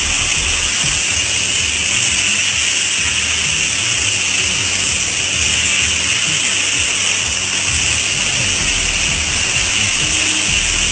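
Steady hiss of a high-pressure water spray washing a truck, with an uneven low rumble underneath.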